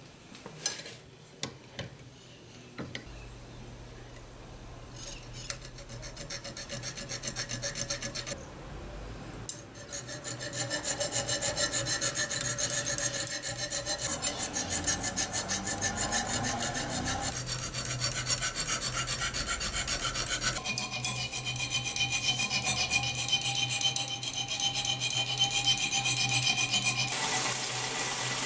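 A few light knocks, then from about ten seconds in a hand file rasping on the steel knife blade beside its aluminium guard in quick, steady back-and-forth strokes.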